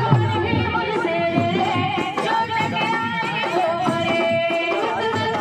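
A woman singing a Bhimgeet, an Ambedkarite devotional song, over instrumental accompaniment, holding long wavering notes.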